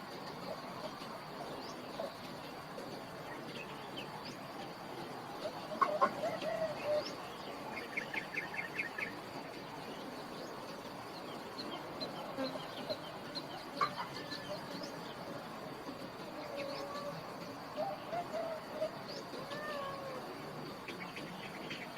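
Birds chirping against a steady rural outdoor background, with a quick run of about six chirps midway and a few short, wavering animal calls scattered through.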